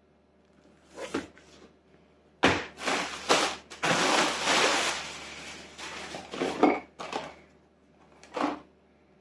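Parts and packaging being handled: a knock about a second in, then a run of clatters and knocks with rustling from about two and a half to seven seconds, and one more knock near the end.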